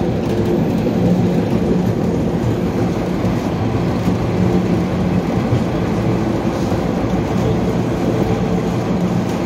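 MBTA Red Line subway car running at speed, heard from inside the car: a steady, loud rumble of wheels on rail with a low motor hum.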